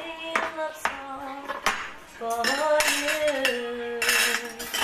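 Plates and cutlery clinking and clattering as dishes are set down on a table, in several separate knocks with a short clatter near the end.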